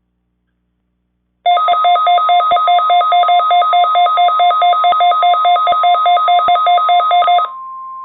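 Emergency alert tone for a test tornado warning: an electronic two-note warble alternating about four times a second starts about a second and a half in and runs for about six seconds, then changes to a single steady tone near the end.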